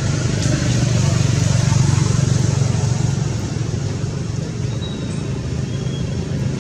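A steady low engine hum, as of a motor vehicle running, with a few faint clicks over it.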